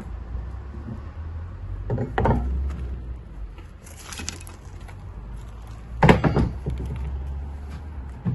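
A few sharp knocks and clatters, the loudest about six seconds in, over a steady low hum.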